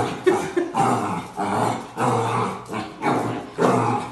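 A black puppy barking and growling in short bursts, roughly two a second, at its own reflection in a mirror.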